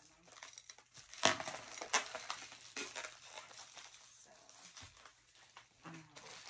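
Plastic packaging crinkling and rustling as it is handled, in irregular crackles, sharpest about a second and two seconds in.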